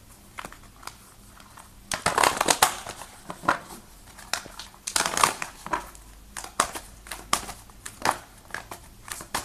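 A tarot deck being shuffled by hand: papery rustling and quick card snaps, busiest about two seconds in and again around five seconds, with scattered single clicks between.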